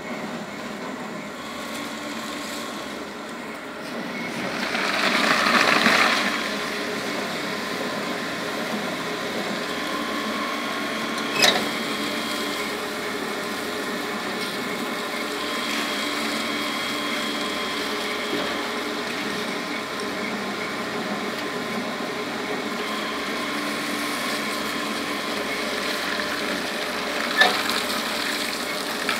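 Strip-cutting shredder running steadily, its rotary cutters slicing wet used plastic bags into strips. A louder rush of cutting swells about four seconds in and fades by six, and two sharp clicks come, one near the middle and one near the end.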